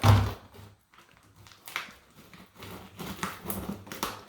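A loud thump, then short irregular rustles and scrapes as a 4-inch dryer vent hose and exhaust connector are handled.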